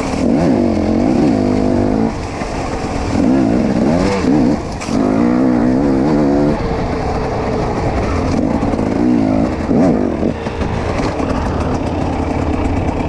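Dirt bike engine being ridden hard, its revs rising and falling over and over as it shifts and throttles through the course.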